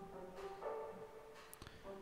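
Faint, wet reverb of a synth pluck heard on its own through a very wide reverb return: soft held reverberant tones, with one short faint hit about one and a half seconds in.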